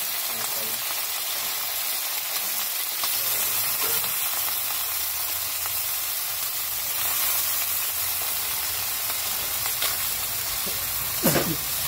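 Chicken pieces with onion and garlic frying in oil in a steel wok: a steady sizzle, with a brief louder sound that falls in pitch near the end.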